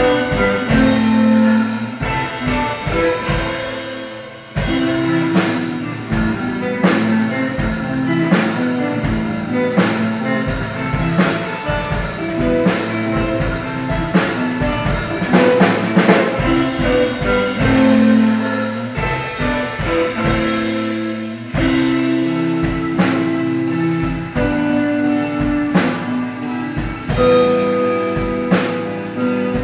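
Live instrumental psychedelic space rock: two electric guitars, an electric bass and a drum kit playing together. The band drops back briefly about four seconds in, then comes back in at full volume.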